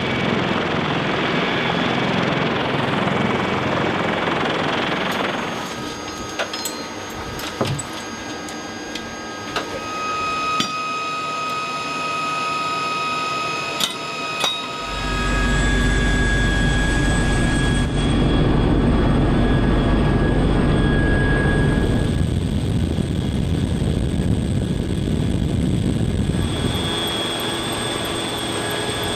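CH-53 heavy-lift helicopter's turbine engines and rotors running, in a few joined shots: a loud steady rush, then a quieter stretch of steady whining tones with a few sharp clicks, then from about halfway a heavy low rumble as heard inside the cabin in flight.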